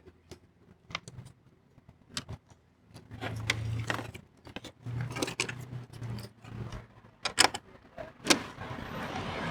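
Metal licence plate frame, plate and screws clicking and clinking as they are handled and fitted together, in a run of irregular sharp taps. A steady low hum joins in from about three seconds in and fades out around seven seconds.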